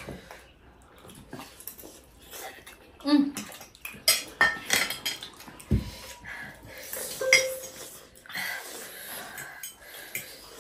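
Forks clinking and scraping on plates and a bowl as several people eat noodles, in irregular short clicks, busiest about halfway through.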